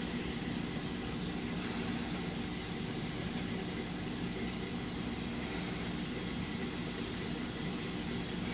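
Steady mechanical hum with a hiss over it, as from running aquarium pumps and circulating water.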